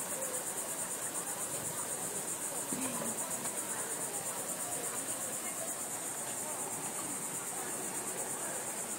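Insects buzzing in a continuous high-pitched trill, pulsing rapidly and evenly without a break.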